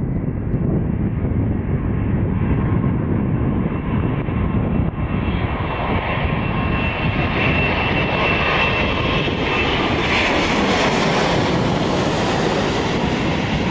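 Boeing 787 Dreamliner's twin turbofan engines on final approach with landing gear down, a steady jet rush that grows brighter as the airliner closes in and passes low overhead. A thin whine rises out of it midway and fades, and the hiss is strongest near the end as the jet goes over.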